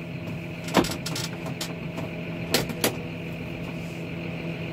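John Deere 6195R tractor's six-cylinder diesel running steadily, heard from inside the cab, with a handful of sharp clicks in the first three seconds as the controls are worked.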